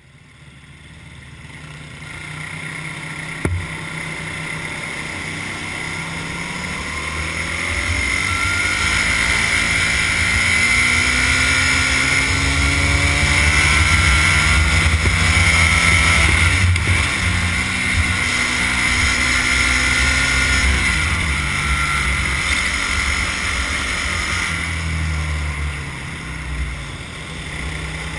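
Racing go-kart engine heard from a camera mounted on the kart, its revs rising and falling as the kart laps, over a steady high whine. The sound fades in over the first couple of seconds, and there is one short knock a few seconds in.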